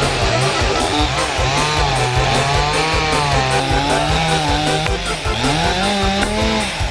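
Chainsaw running as it cuts wood. The engine's pitch wavers with the load, climbs near the end, then drops sharply.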